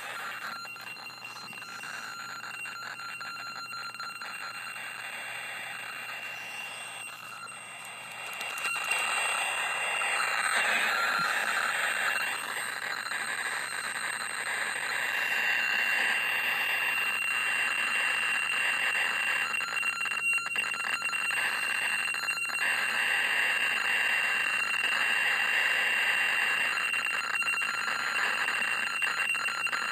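Radio static: a steady hiss with a thin, high, constant whistling tone running through it, getting louder about nine seconds in.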